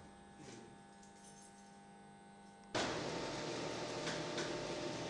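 Lift sounds: a quiet steady hum, then a little past halfway a sudden jump to a louder steady rushing noise with a faint steady whine.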